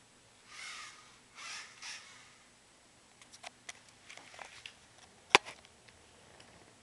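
Handling noise as a camera is moved and set down on a hard floor: scattered small clicks and taps, then one sharp knock a little over five seconds in, the loudest sound. Three short hissy bursts come in the first two seconds.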